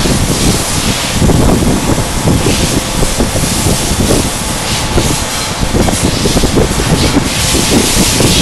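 CNC router milling acrylic plate: steady loud machine noise with a low rumble, and a high hiss that swells and fades several times.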